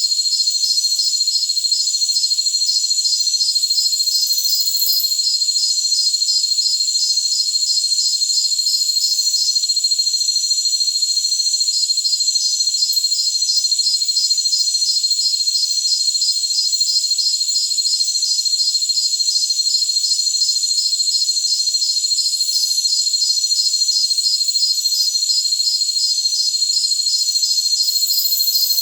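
Chorus of jungle crickets: a steady high-pitched trill under a rapid pulsing chirp. The pulsing chirp stops for about two seconds around ten seconds in, then resumes.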